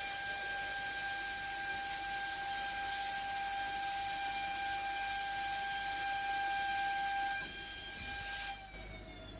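CNC router spindle running with a steady high whine and hiss. Near the end it cuts off, and the whine slides down in pitch as the spindle winds down.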